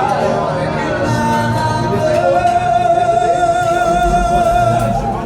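A live singer over backing music, holding one long note with vibrato through the second half.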